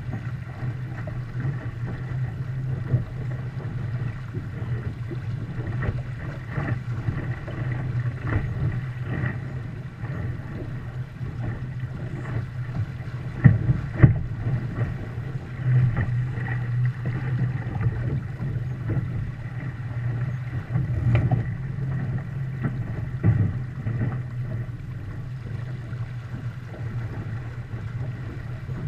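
Wind and water rushing past a Viper 640 sailboat under sail, with a steady low rumble of wind over the deck-mounted camera. Short knocks come now and then as the hull meets waves, the two strongest about fourteen seconds in.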